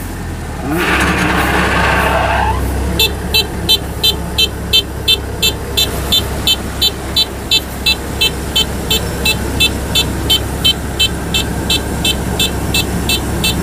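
Kubota DC-105X rice combine harvester's engine running steadily, with a short rushing noise about a second in. From about three seconds in, an electronic warning beeper sounds over it, about three short beeps a second.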